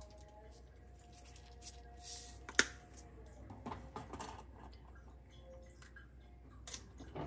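Sesame seeds shaken from a jar, pattering lightly onto seasoned cabbage leaves, with small handling ticks and one sharp click about two and a half seconds in.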